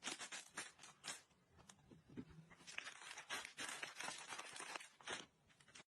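Faint, irregular crinkling and crunching noises in quick runs, with short pauses between.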